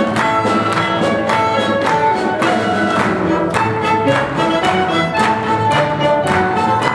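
Pit orchestra playing fast dance music led by fiddles and strings, with a quick, steady beat.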